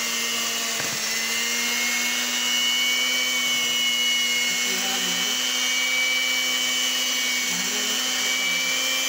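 Electric hand mixer running at a steady speed, its twin beaters whisking thin flour batter in a plastic tub: a constant motor hum and whine.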